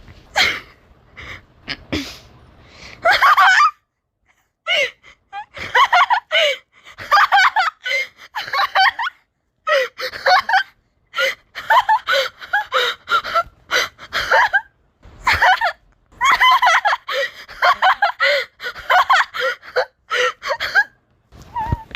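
A person laughing in several long fits of quick bursts, with short pauses between them.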